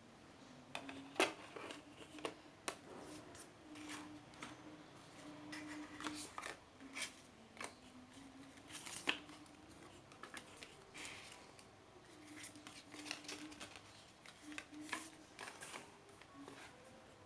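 Hands handling CD album packaging: scattered clicks, crinkles and rustles of paper and plastic, with some sharp snips or snaps among them.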